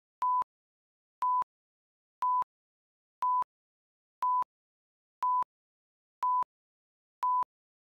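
Countdown leader beeps: a short, steady, single-pitched beep once a second, eight times, with dead silence between them.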